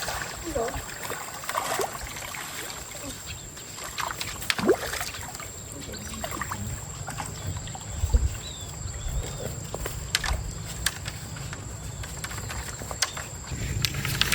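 Stream water sloshing and trickling under a steady low rumble, with scattered knocks and small splashes.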